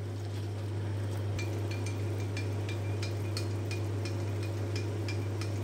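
Milk simmering in a pan on the stove, small bubbles popping in irregular ticks from about a second in, over a steady low hum.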